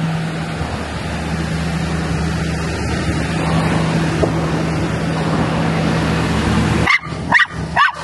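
A dog barks three times in quick succession near the end, over the steady drone of an engine running.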